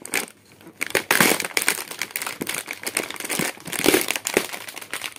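Plastic wrapping and snack packets crinkling and rustling as a cardboard cookie box is handled and pulled out from among them, in irregular bursts of crackling that start about a second in.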